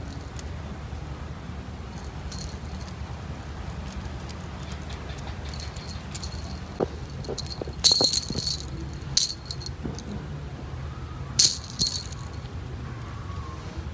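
Small jingle bells on a cat's wand toy jingling in brief, irregular shakes as the cat bats and grabs at it, loudest about eight seconds in and again near the end.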